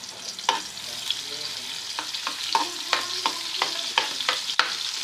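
Chopped onion sizzling in hot ghee, frying toward light golden for a tadka, with a utensil clicking against the pan a dozen or so times as it is stirred.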